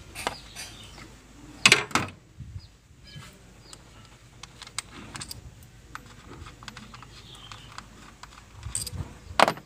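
Light clicks and clatter of hand tools and plastic parts while ignition coils are taken off a Nissan X-Trail engine, with a pair of sharp clicks about two seconds in and another near the end.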